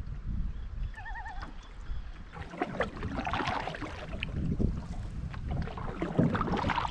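Canoe paddling on lake water: irregular splashes and drips of paddle strokes, with wind rumbling on the microphone. About a second in, a short wavering, trilled call sounds briefly.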